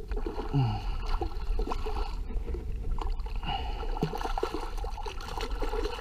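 Hooked red drum (redfish) thrashing at the surface beside a kayak: irregular water splashing and sloshing with short sharp strikes.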